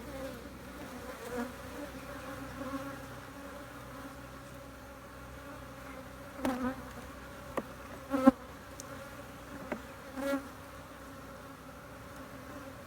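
Honeybees buzzing steadily around an open hive, with a few sharp knocks between about six and ten seconds in, the loudest just past eight seconds.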